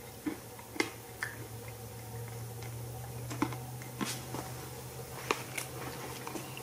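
A steady low electrical hum from a running Collins vacuum-tube transmitter and its small arc, growing a little louder about two seconds in as the transmitter is tuned, with scattered faint clicks.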